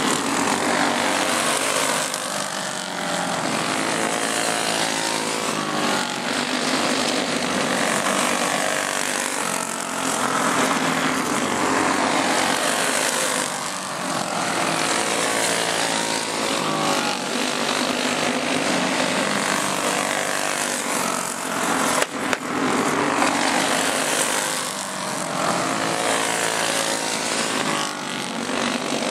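Racing go-kart engines running hard as a pack laps the track, their pitch rising and falling with the throttle and the sound swelling and fading every few seconds as karts pass. A short sharp knock about two-thirds of the way through.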